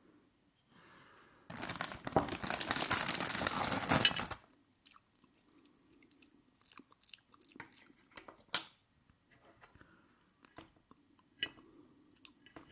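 Close-miked eating: about a second and a half in, a loud crunching stretch lasts about three seconds, then quieter chewing with scattered sharp mouth clicks.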